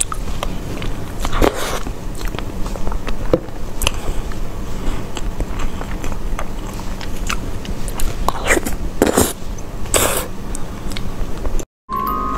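Close-miked eating: a person biting into and chewing soft, creamy cake, with sticky, wet mouth noises and small clicks. Just before the end the sound cuts out briefly, and music with high, bell-like notes starts.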